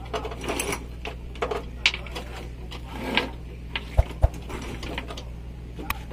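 Irregular light mechanical clicks and taps over a steady low hum, with two heavier knocks in quick succession about four seconds in.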